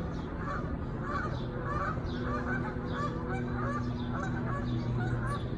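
Geese honking repeatedly, several short calls a second, over a steady low hum.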